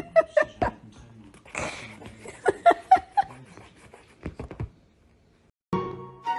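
A pet animal making a run of short, quick sounds, several a second, with a short pause in between. Near the end the animal sounds stop and music starts.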